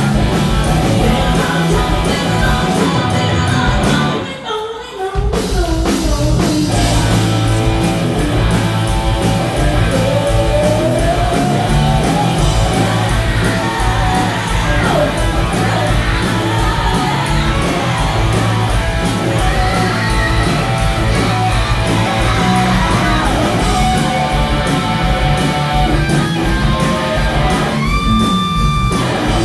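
Live rock band playing loudly: electric guitars, bass and drums with a woman singing over them, heard in a large hall. The band drops away for about a second about four seconds in, and a long held note rings near the end.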